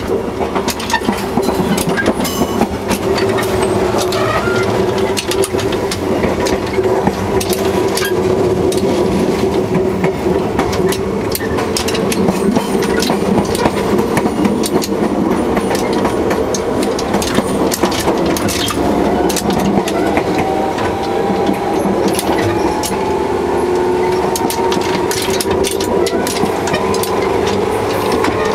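Running sound of a JR 115 series 3000 electric train, recorded beside the coupler: the coupler rattles and knocks constantly over steady rail noise. A whine rises in pitch over the last several seconds.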